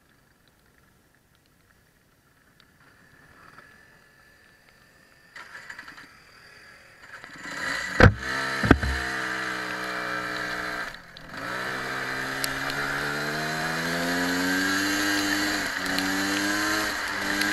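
Kart engine starting with two sharp bangs about eight seconds in, then running and revving up. Its pitch climbs steadily, with a short dip about three seconds after it catches.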